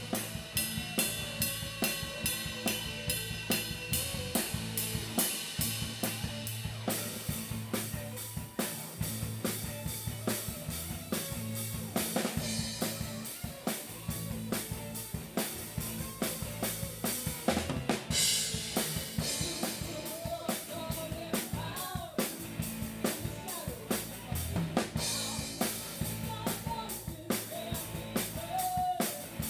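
A live rock band playing a hard rock song, heard close to the drum kit. The drums are loudest, with kick, snare and cymbals keeping a driving beat over bass and electric guitar. Fast bright cymbal strokes in the first few seconds give way to a heavier groove, with cymbal crashes ringing out about two-thirds of the way through.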